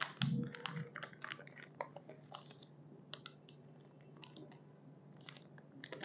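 Clear plastic zip-lock sleeve crinkling as it is handled: a run of small crackles and clicks, busiest in the first couple of seconds and sparser after, with a soft bump near the start.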